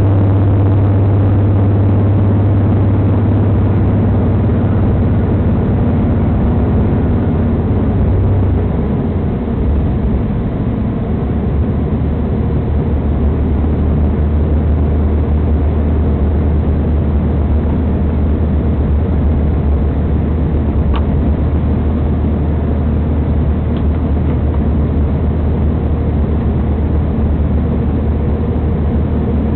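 Inside a moving diesel train: a steady low engine drone over continuous running noise. About eight seconds in, the engine note steps down lower and a little quieter.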